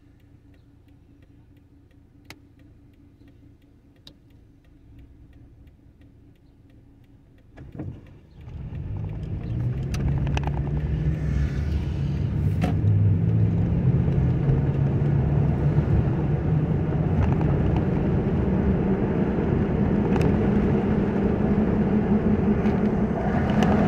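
Car heard from inside the cabin: faint idle hum while stopped, then from about eight seconds in the engine note rises and road and tyre noise grows loud as the car pulls away and drives on.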